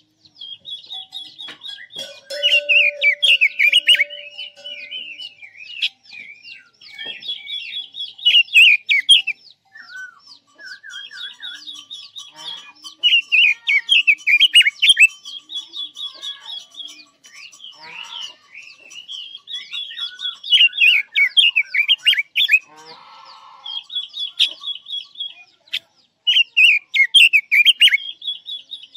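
Caged red-billed leiothrix (Quế Lâm bird) singing loudly: repeated warbling phrases of quick falling notes, a few seconds apart.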